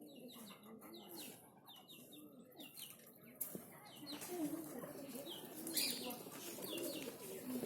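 Birds calling: a low cooing note repeated about once a second, with quick high descending chirps in the first half.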